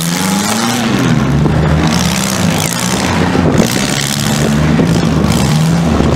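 Several small demolition-derby cars' engines revving up and down over one another, with a sharp bang about three and a half seconds in.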